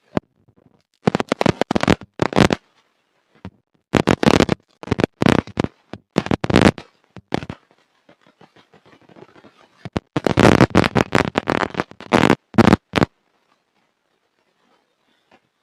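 Hard, dry black mud crunching and crackling as it is crumbled, in three bursts of many sharp cracks with short pauses between, picked up by a water-damaged microphone.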